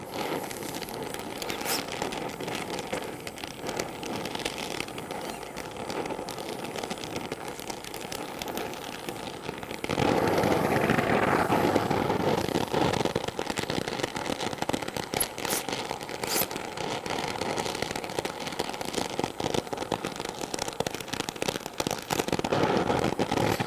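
Brazing torch flame hissing steadily on hot cast iron as a bronze rod is melted into the joint, with scattered sharp crackles and pops. About ten seconds in the hiss gets louder and stays so.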